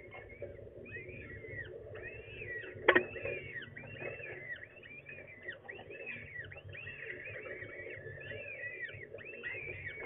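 Peregrine falcon chicks begging with a steady stream of high, arched peeps, several a second, as an adult feeds them. A single sharp knock sounds about three seconds in.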